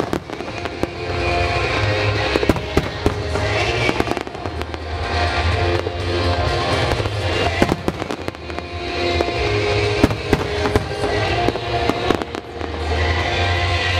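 Aerial fireworks going off in a rapid, irregular series of sharp bangs and pops. Underneath runs a music soundtrack with held notes and a deep bass.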